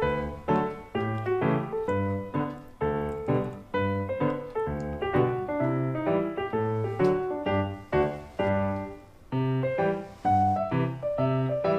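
Piano-keyboard background music: short, detached notes over a steady, evenly paced bass line. It breaks off briefly about nine seconds in and then resumes.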